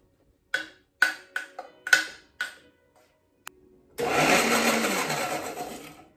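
About six sharp metallic clinks from a spoon working against a small countertop blender jar, then a click. About four seconds in, the blender's motor starts, rising in pitch as it spins up, and runs loudly for about two seconds while blending basil pesto.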